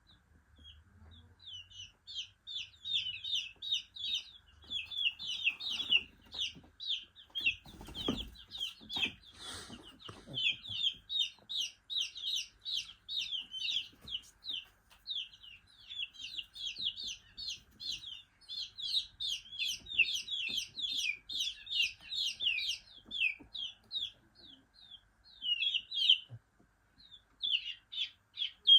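Ayam Cemani chicks peeping continuously, many short high, falling peeps a second, with a few low bumps or rustles partway through.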